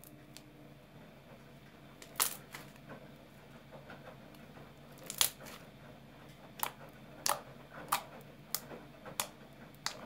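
Pink homemade slime made from Colgate toothpaste and shower gel being kneaded and poked by hand, giving sharp wet pops and clicks as air pockets burst. A few come singly at first, then they follow about every half second to second near the end.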